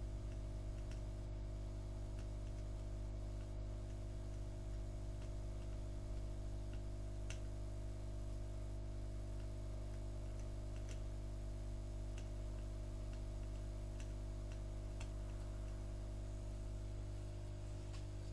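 A steady low electrical hum made of several even tones, with faint scattered ticks now and then, a few of them clearer about seven and eleven seconds in.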